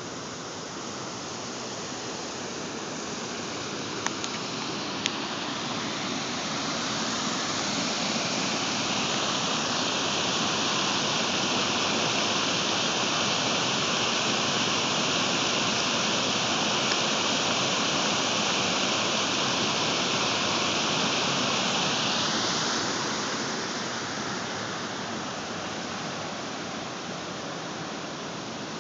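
Water pouring over a pond's concrete outflow weir into a narrow channel: a steady rushing that swells about seven seconds in, stays loud for about a dozen seconds, then fades.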